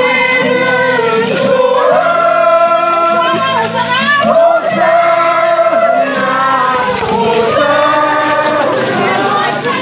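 A choir singing a hymn, many voices together, over steady held low notes.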